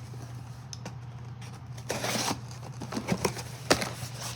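A shipping package being handled and opened: scattered clicks and taps, with a scratchy rustle about two seconds in and a sharp click later on.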